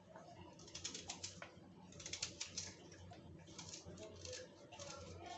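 A small knife cutting an onion held in the hand, in several short bursts of quick, light clicks and scrapes.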